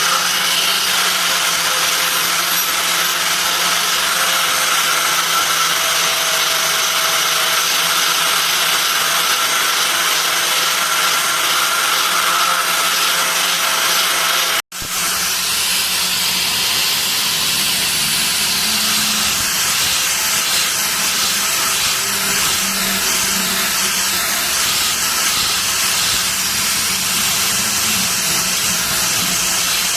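Steady, loud hissing machine noise with a faint steady hum underneath. It cuts out for an instant about halfway through, then carries on unchanged.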